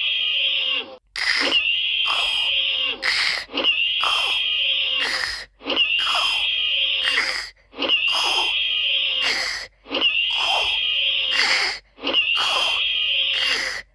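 A cartoon hiccup sound effect looped over and over, the same short clip repeating about every two seconds. Each time there is a high held tone of about a second, followed by a few sharp catches.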